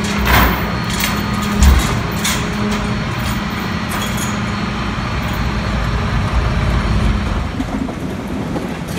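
Mack MRU garbage truck's engine running steadily at the rear of a McNeilus rear loader, with metal knocks as a dumpster is pushed up against the hopper; the loudest knock comes about a second and a half in.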